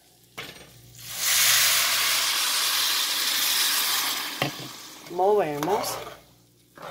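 Water poured into a hot metal pot of oil-toasted rice and sausage, hissing and sizzling loudly for about three and a half seconds, then dying down. A single sharp knock near the end of it.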